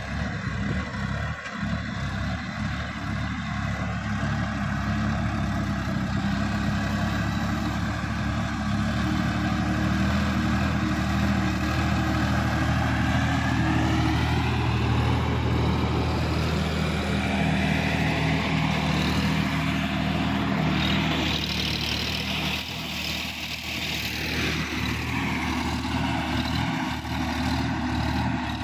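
Sonalika DI 50 Rx tractor's diesel engine running steadily under load as it pulls a rotary tiller through the soil, its note shifting in pitch around the middle.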